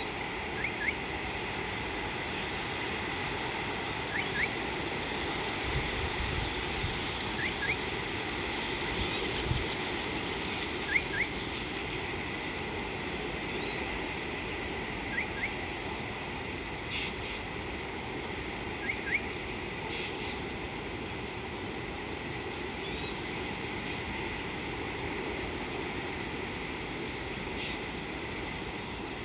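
Chorus of calling insects in the bush: a high chirp repeating about once a second over a steady high drone, with a pair of short rising calls every few seconds.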